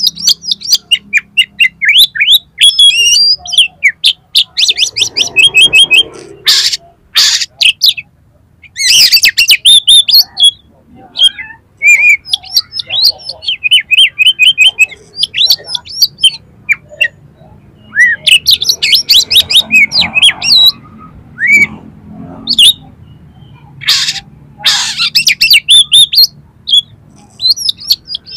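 Oriental magpie-robin (kacer) singing loudly: fast runs of sharp chirps and whistled notes, broken now and then by short harsh rasping calls.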